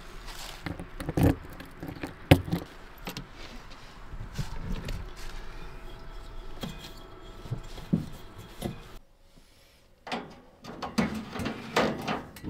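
Handling clatter at a camper van's exterior gas locker: two sharp clacks about one and two seconds in as the hatch is opened, then knocks and rattles as the LPG bottle's valve is turned on. After a short hush about nine seconds in, more knocks and clicks come from the gas heater's controls being worked.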